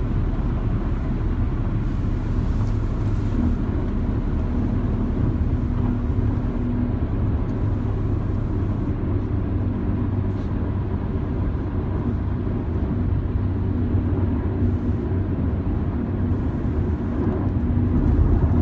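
Car interior noise while driving: a steady low road and engine rumble, a little louder near the end.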